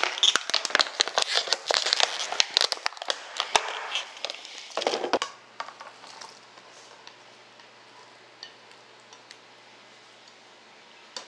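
About five seconds of busy crinkling, crackling and clicking from kitchen handling. It then falls quiet to a faint steady low hum, with a few soft taps as a spatula scrapes vegetables off a plate into the stew pot.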